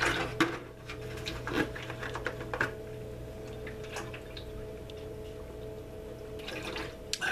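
A man drinking water from a large plastic jug. The jug is handled with a few clicks and knocks in the first two or three seconds, then comes a steady stretch of drinking, over a steady low electrical hum.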